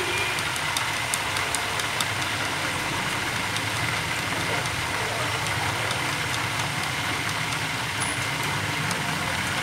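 Chopsticks beating eggs in a ceramic bowl, with light clicks of the sticks against the bowl, most of them in the first couple of seconds. A steady low hum runs underneath.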